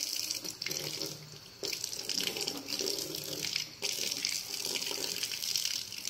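Kitchen faucet running, a thin stream of water splashing into a stainless-steel sink and over a cat's head. It goes briefly quieter about a second in.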